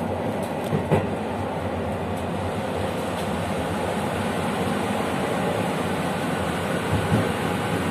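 Passenger train running along the track: a steady rumble of wheels on rails, with sharp knocks about a second in and again near the end.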